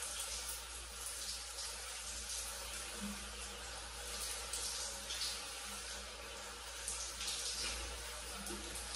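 Shower running in a tiled stall, water spraying and splashing steadily, with surges of splashing every second or two.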